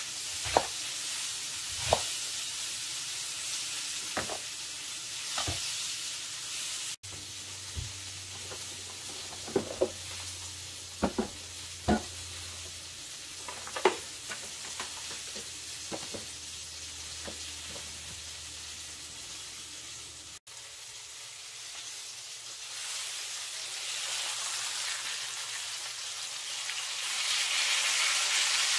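Tomatillos, onion and serrano chilis sizzling in a frying pan, a steady hiss that grows louder near the end. In the first half, scattered sharp knocks of a knife chopping on a wooden cutting board, then other kitchen clatter.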